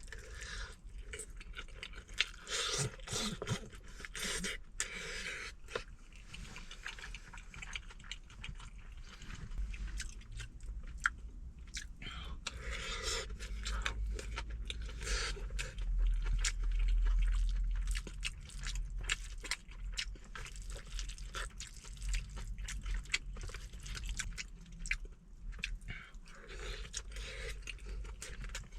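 Close-miked chewing and mouth sounds of someone eating braised chicken mixed with rice, with many small wet smacks and clicks. A low rumble swells for a few seconds in the middle.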